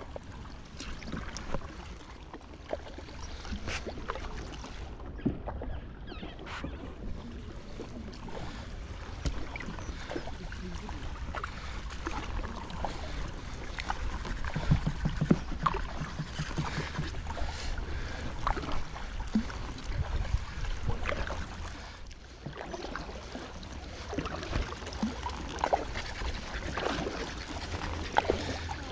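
Kayak paddle blades dipping and splashing in river water in irregular small strokes, over a steady low rumble.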